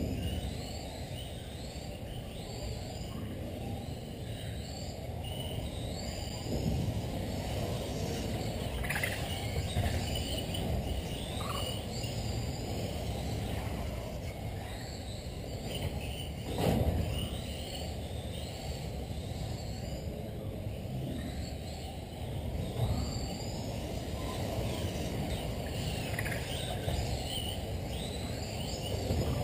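Electric RC race cars lapping an indoor carpet track: motors whining up and down in pitch again and again as the cars accelerate and brake, over a steady reverberant hall rumble. A single sharp knock comes partway through.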